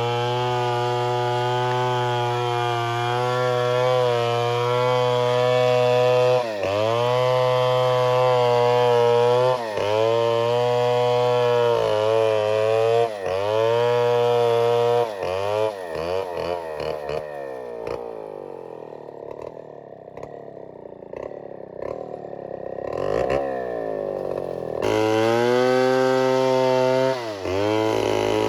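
Two-stroke chainsaw running at high revs, its pitch dipping briefly several times. Past the middle it falls to a lower, uneven speed for several seconds, then revs back up.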